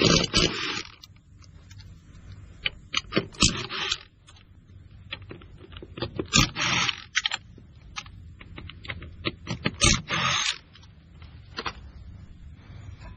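Lug nuts being taken off the left front wheel of a Kubota BX2380 subcompact tractor: four short scraping, rattling bursts a few seconds apart, one for each of the four lugs, with clicks and knocks between them.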